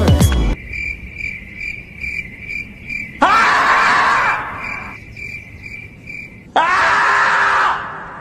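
Screaming-marmot meme sound: after music cuts off half a second in, crickets chirp about twice a second, then a long, loud scream about three seconds in and a second one about six and a half seconds in.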